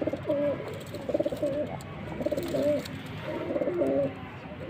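Domestic pigeons cooing: a run of short coos, about one a second, each stepping between a lower and a higher note.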